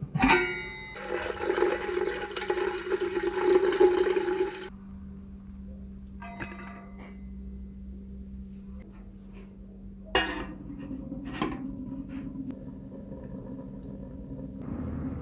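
Water gushing in a strong, steady stream for about four seconds, then stopping. After it comes a quiet stretch with a low steady hum and two sharp knocks that ring on, near the end.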